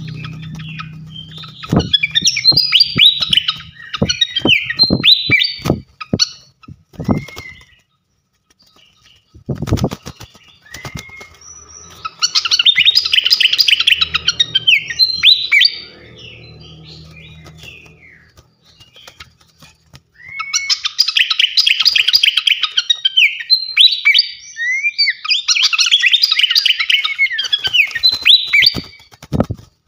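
Small songbird, the 'srikatan kipas' named in the title, singing fast, high chattering bursts of song in three long phrases: in the first few seconds, around the middle, and through most of the last third. Sharp clicks or knocks sound several times in the first ten seconds.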